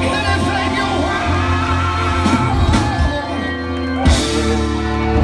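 Live rock band playing: electric guitars, bass and drums, with a sharp loud drum hit about four seconds in.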